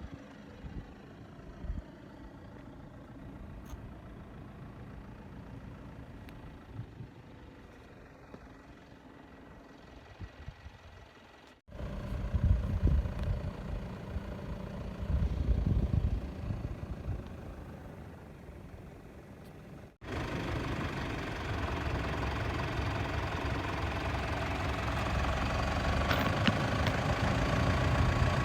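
Vehicle running and driving, heard in three clips joined by hard cuts: a quiet rumble first, then a louder, uneven low rumble, then steady, louder running noise.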